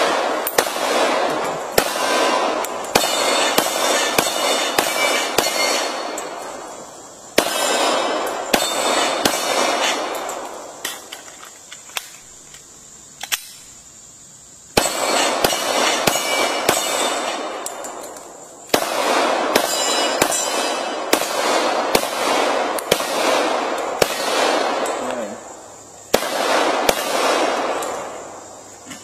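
Glock 21 Gen 4 .45 ACP pistol fired in about five rapid strings of shots with short pauses between them. Each shot echoes off the surroundings, and hits on steel targets ring.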